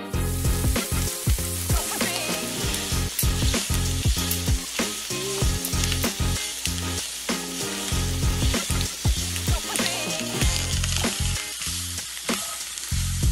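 Fried rice with diced onion and red pepper paste sizzling in a hot nonstick pan, with a spatula repeatedly stirring and scraping it around the pan.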